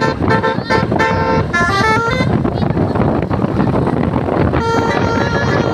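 A bus's telolet basuri musical air horn plays a quick tune of short stepped notes for about two seconds. A stretch of vehicle noise follows, and the horn comes back holding its notes near the end.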